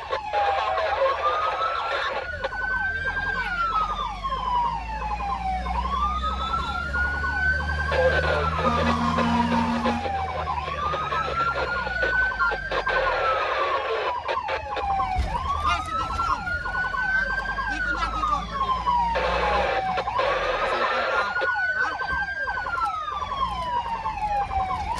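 Emergency siren of a fire-response vehicle wailing, its pitch rising quickly and then falling slowly, over and over about every four seconds. A low engine and road rumble runs underneath.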